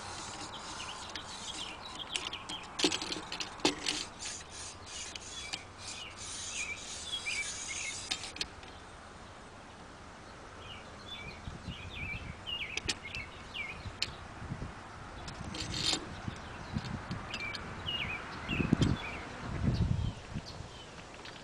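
Small birds chirping in the background, with light metal clicks and rubbing as the knife sharpener's guide rod and clamp are handled. A few dull thumps near the end.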